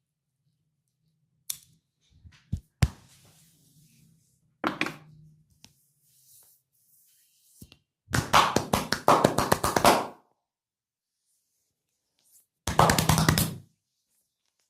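A masseur's hands striking the body in rapid percussive massage strokes, about ten a second: one run of about two seconds and a shorter one of about a second. A few single sharp taps come before them.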